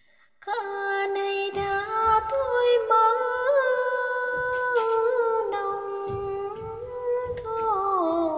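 A woman singing phong slu, a Tày folk song, solo without accompaniment. She holds long notes decorated with small slides and turns, and the melody steps downward near the end. The singing begins about half a second in.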